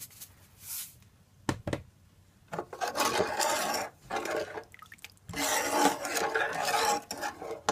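A metal spoon stirring sauce in a cooking pot, scraping against the pot in two long spells, after two quick knocks about a second and a half in.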